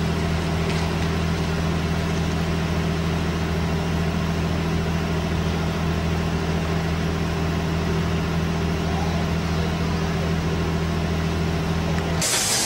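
An engine running steadily at idle, a constant low hum that does not change. It cuts off abruptly near the end and gives way to a hiss.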